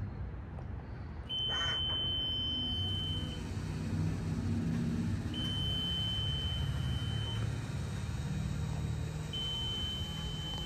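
Haulotte 5533A electric towable boom lift moving its boom, its pump running with a low hum that starts about a second in, under a high-pitched alarm sounding three long steady beeps of about two seconds each, one every four seconds.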